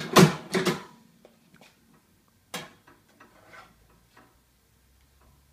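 Nagel Multinak FS pad stapler firing: a quick run of loud mechanical clunks as its stapling heads drive staples through a thick paper pad. About two and a half seconds in comes a single sharp knock, then softer knocks and paper handling sounds as the stapled pad is taken out.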